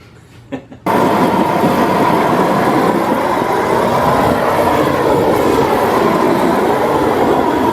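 A loud, steady roar of noise that starts suddenly about a second in, with a wavering pitch running through it.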